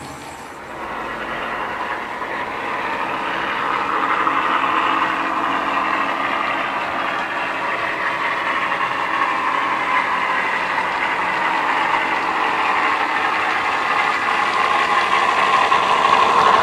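Sound decoder in a model British Rail Class 17 diesel locomotive playing its engine sound through the model's sugarcube speakers, running steadily as the model pulls its train. It grows louder over the first few seconds and again near the end as the model passes close.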